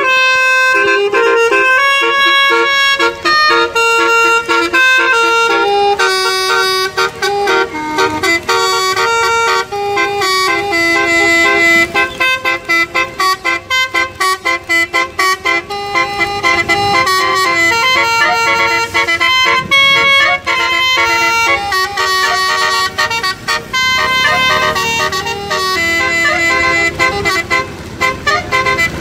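A bus's multi-tone 'telolet' air horn (Basuri) playing a fast melody, its notes changing several times a second, in phrases broken by short gaps.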